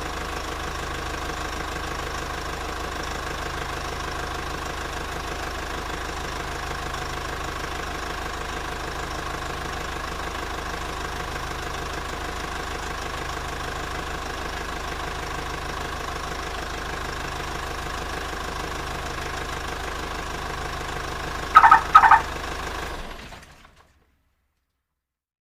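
Car engine idling steadily after starting. Near the end come two short, loud beeps, and then the sound fades out to silence.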